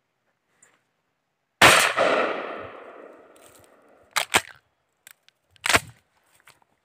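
A single shotgun shot, its echo dying away over about two seconds. About two seconds later come two quick sharp clicks, then a louder clack about a second and a half after that.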